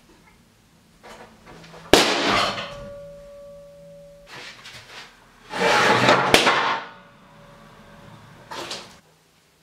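Separate clatters and impacts: a sharp bang with a brief metallic ring about two seconds in, then a longer scraping rasp from a handsaw rigged on a table, ending in a sharp crack, and a short knock near the end.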